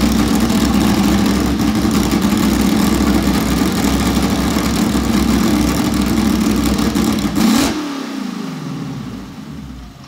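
The Mercedes-Benz W196R's 2.5-litre straight-eight racing engine runs at a steady fast idle while warming up. About seven and a half seconds in it blips once, then is switched off, and its revs wind down and fade.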